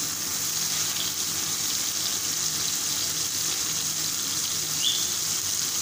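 Small diced chicken pieces frying in oil in a pan, a steady sizzle. The sauce has cooked off, so the chicken is frying in the remaining oil.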